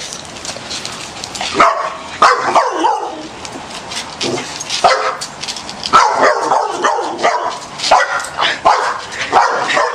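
A dog barking and yipping repeatedly in short, loud bursts at irregular intervals. The dog is excited and worked up by a turtle chasing it.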